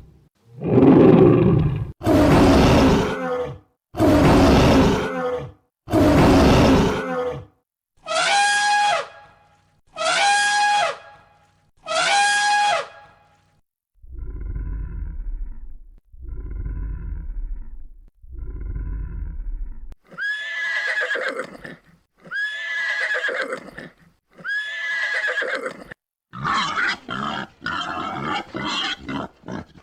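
A sequence of different farm animal calls, each kind played three times in a row with short pauses between: first harsh loud calls, then three higher pitched calls, then three deep low calls, then three calls that rise and fall in pitch, and near the end a quick run of short calls.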